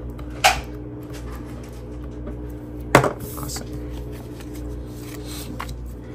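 Paper cash envelopes and a binder being handled: a brief rustle about half a second in, then one sharp click about three seconds in with a little shuffling after it, over a steady low hum.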